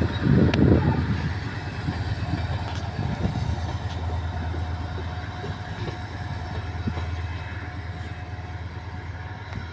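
Train rumbling along the track, loudest about half a second to a second in, then a steady low rumble that slowly fades away.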